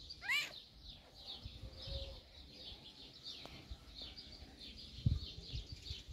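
Small birds chirping continuously in quick, high twitters. One short, high, rising-and-falling squeak stands out about half a second in.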